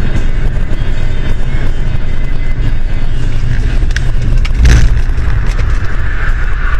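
Steady road and engine rumble inside a car's cabin, picked up by a dashcam, with a sudden heavy thump about two-thirds of the way in as the car slews sideways out of control. A harsher scrubbing noise grows after the thump.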